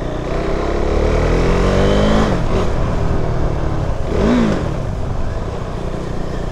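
Motor traffic noise with a vehicle engine whose pitch falls steadily over the first two seconds or so, then a short rising-and-falling tone about four seconds in.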